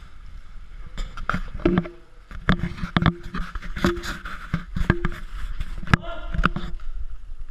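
Boots walking on a gritty concrete floor: a run of irregular footfalls and scuffs, about two a second, over a low rumble.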